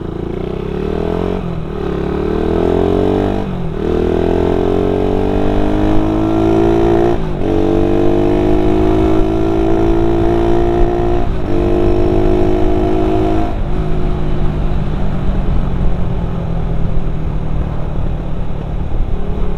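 Suzuki Satria FU's 150cc single-cylinder four-stroke engine through a C-type header pipe and stock muffler, accelerating hard and rising in pitch through several quick upshifts, then running steadily at a lower pitch. Its exhaust note is a little louder and tinny from the wider 50–55 mm header.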